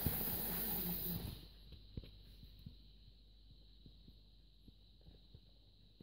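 Hornby model diesel shunter and its freight wagons rattling along loose sectional track close by, dropping away suddenly about a second in as the train moves off to the far side of the loop. After that only faint scattered clicks from the wheels on the track remain.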